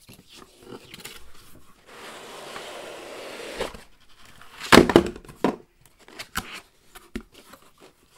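Cardboard box being opened and its packaging handled: a long sliding scrape of cardboard about two seconds in, then a cluster of loud knocks about five seconds in, with smaller taps and rustles around them.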